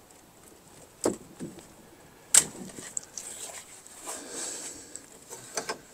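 A few scattered clicks and knocks of hand tools worked against the bell's wooden yoke, the sharpest about two and a half seconds in.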